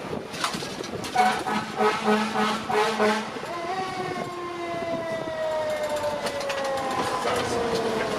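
Fire truck air horns sounding in a few short blasts from about a second in, followed by a Federal Q mechanical siren winding down: a long, slowly falling whine.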